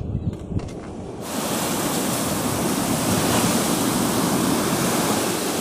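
Sea surf breaking and washing up a beach: a steady, loud rush of waves that starts abruptly about a second in. Before it come a few soft low thumps and clicks.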